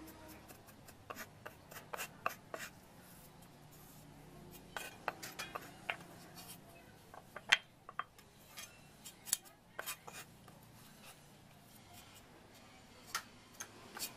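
Cleaver blade tapping and scraping on a wooden chopping board and knocking against a small ceramic bowl, in irregular sharp clicks, the loudest about halfway through.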